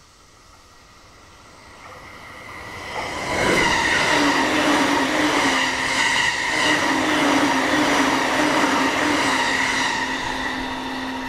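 JR electric train passing at over 100 km/h: it builds up over a couple of seconds, then the loud rush and regular clatter of wheels over the rail joints, with a steady low tone under the noise, before it fades away near the end.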